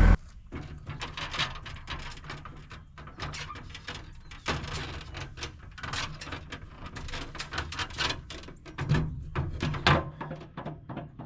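Irregular knocks and clicks of work on wooden roof trusses, over a low steady hum.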